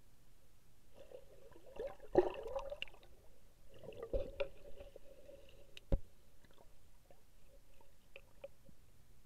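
Muffled underwater sound of swimmers moving in a swimming pool, with bubbles gurgling and several sharp knocks, the loudest about two seconds in and others near four and six seconds.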